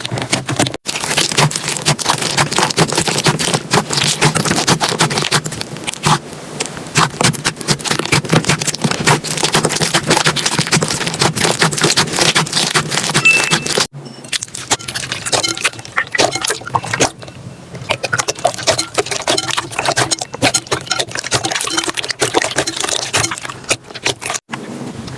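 Slime being squeezed and poked by hand, giving a dense run of small crackling clicks and pops. The sound breaks off briefly about a second in, again about halfway and again near the end, each time starting up again with a slightly different texture.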